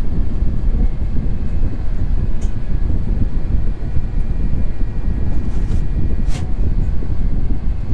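Steady low rumble of an Airbus A350 airliner heard from inside the cabin: its Rolls-Royce Trent XWB engines and the airflow around the fuselage. A faint steady whine sits above the rumble, and two brief hissy clicks come about two and a half and six seconds in.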